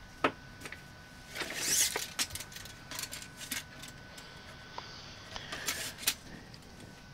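A steel tape measure is pulled out and laid across a brass shower valve. There is a sharp click about a quarter second in, then a rasping slide of the blade at about a second and a half, then scattered small clicks and taps as the tape and fittings are handled. A faint steady high whine runs underneath.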